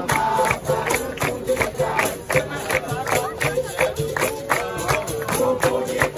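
Capoeira roda music played live: berimbaus and an atabaque drum with steady hand-clapping, while the group sings a chant over it.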